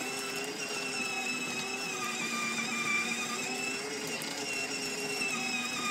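Battery-powered children's ride-on toy Mercedes driving along, its electric drive motors and plastic gearboxes giving a steady whine.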